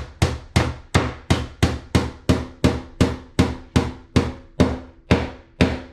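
Hammer driving a long nail into wooden baseboard with steady, evenly spaced blows, about three a second.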